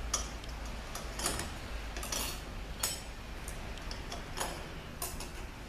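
Steel clutch plates and friction discs of a 62TE transmission's low clutch drum clinking as they are dropped and seated one at a time into the drum: a string of short, irregular metallic clinks.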